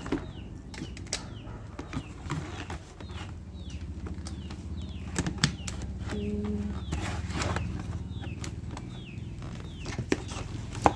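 Packaging being handled: rustling with scattered clicks and knocks as items are packed back into their box. Behind it, birds chirp over and over in short falling calls.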